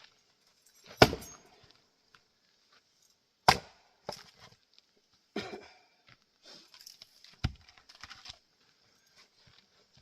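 Axe strikes splitting Douglas fir rounds: four sharp chops a couple of seconds apart, the first the loudest, with lighter knocks of wood between them.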